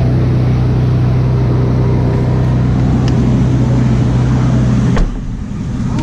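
Ferrari 458 Speciale's V8 idling with a steady low hum. About five seconds in, the driver's door shuts with a single thud, and the engine note drops and turns duller.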